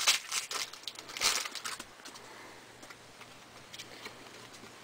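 Crinkling of a foil trading-card pack wrapper and cards being handled, in short bursts over the first two seconds, then only a few faint clicks.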